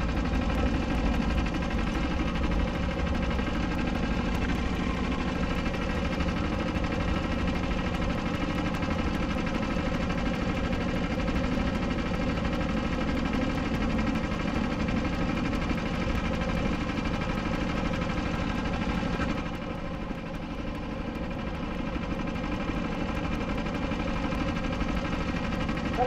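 SODI LR5 rental kart's 160 cc four-stroke engine idling steadily, with a slight drop in level about twenty seconds in.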